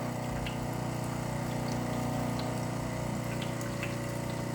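Espresso machine pump running steadily, with a hum, pushing water through the group head during an extraction.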